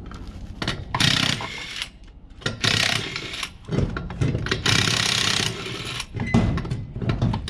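Cordless impact wrench hammering race-car wheel lug nuts loose, in three bursts of just under a second each, then a couple of shorter bursts near the end.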